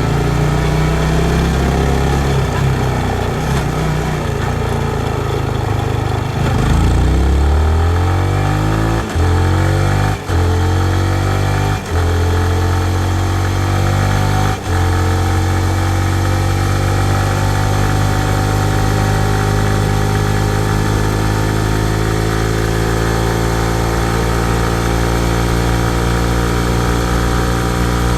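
Yamaha MT-15's 155 cc single-cylinder engine, steady at low revs at first, then accelerating hard from about six seconds in, with four quick upshifts heard as short drops in the engine note. It then pulls steadily in a higher gear, its pitch climbing slowly as speed builds.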